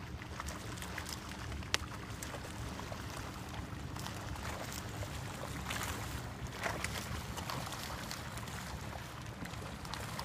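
Small waves lapping and splashing against the side of a fishing boat, over a steady low hum. One sharp click about two seconds in.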